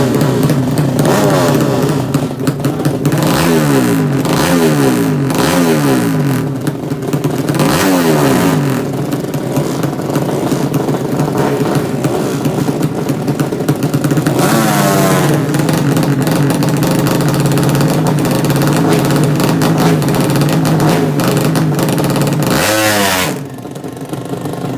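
A 200cc underbone (bebek) motorcycle engine in a laid-down 'sleep engine' build, running loudly and being revved in quick blips several times in the first eight seconds. It is blipped again about halfway through, then revved high near the end before dropping back to a quieter idle.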